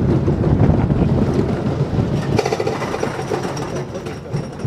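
Ghost Rider wooden roller coaster train rattling into the base of its chain lift hill: a fast, steady mechanical clatter of the lift chain and anti-rollback, growing sharper about halfway in.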